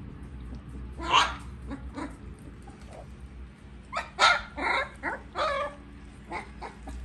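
Siberian husky puppies giving short, high-pitched barks: one about a second in, then a quick run of about five between four and five and a half seconds in.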